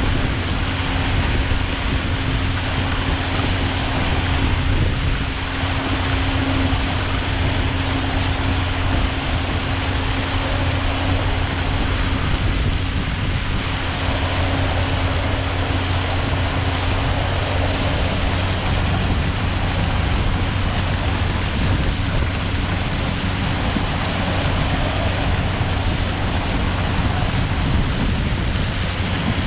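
A boat's motor running steadily, a constant low hum with a steady tone above it, under an even hiss.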